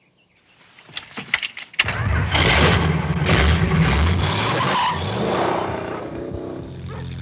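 A car's engine running as the car pulls up, with a loud rush of tyre noise on pavement for a few seconds, then the engine carries on running steadily.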